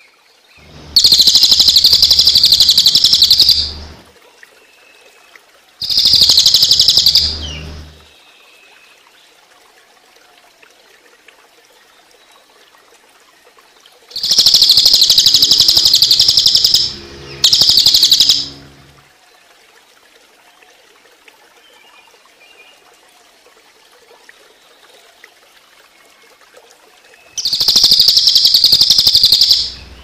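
Crested jay (cililin) giving its rapid, machine-gun-like rattling call, the 'tembakan', in five loud bursts of about two to three seconds each. A faint steady sound of running water lies underneath.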